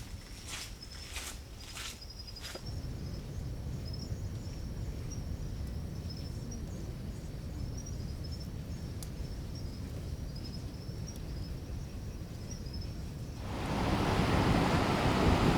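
Kaieteur Falls rumbling low and steady, with a thin repeated high chirping over it and a few evenly spaced rasping pulses at the start. About 13 seconds in, a much louder rush of falling water comes in.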